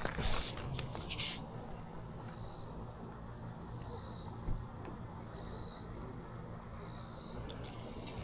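Brief rustling and handling noise, then a quiet outdoor background in which a faint high chirp repeats about every second and a half, with one small tap about four and a half seconds in.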